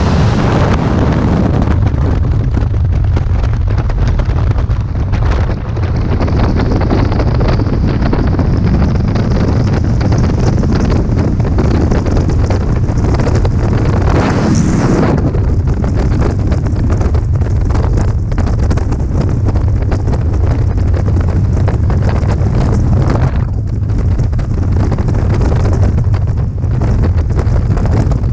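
Loud, steady rush of freefall wind buffeting a helmet-mounted camera's microphone during a skydive.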